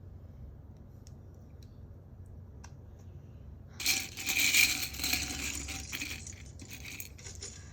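Loose plastic LEGO pieces clattering against each other: a few light clicks, then about four seconds in a busy run of clatter lasting some three seconds.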